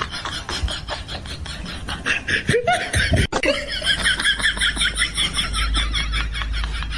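Someone laughing in quick, high-pitched bursts, getting louder from about two seconds in.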